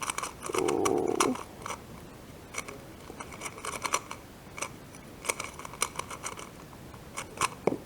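Plastic 2x2 speedcube being turned quickly by hand: irregular clicking and clacking of the layers as the solve goes on, with a brief muffled noise about half a second in.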